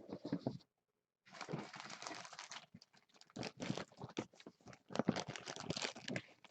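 Plastic packaging crinkling and tearing in quick irregular crackles, with light handling knocks, as a packaged autographed jersey is unwrapped; the sound drops out completely for about half a second near the start.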